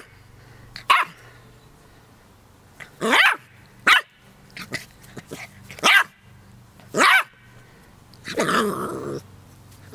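Keeshond puppy yapping in short, high barks, about six of them spread over several seconds with a few small yips between, and a longer bark near the end.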